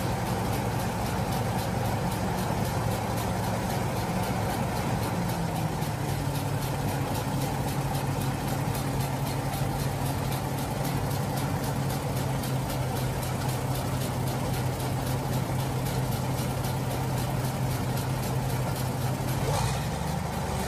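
Logging truck's engine idling steadily. Its pitch drops slightly about five seconds in, then holds even.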